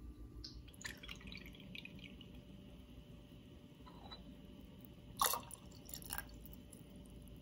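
Shochu poured from a stainless steel jigger into a ceramic teacup of tea: faint trickling and splashing, with a few light clicks, the sharpest about five seconds in.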